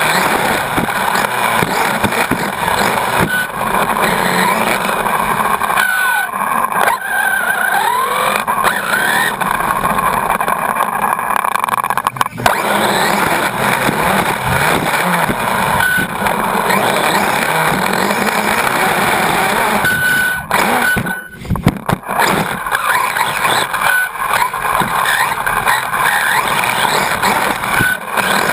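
Team Associated RC8.2e brushless electric 1/8-scale buggy racing, heard from a camera mounted on the car. The motor's whine rises and falls with the throttle over drivetrain and tyre-on-dirt noise. The sound drops away sharply for about a second, three-quarters of the way through.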